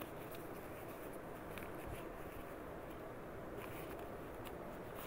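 Faint rustling of a sheet of lined notebook paper being folded and handled, with a few small crackles of the paper, over a steady low background noise.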